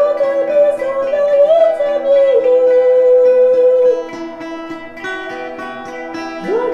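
A woman singing a folk-style song over steady held drone chords and plucked strings. Her line slides between notes, breaks off about four seconds in while the drone carries on, and comes back in with an upward scoop near the end.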